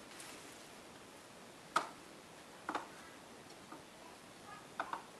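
A few light taps and knocks of raw chicken pieces and a hand against ceramic bowls while dredging the chicken in seasoned flour, over a faint steady hiss.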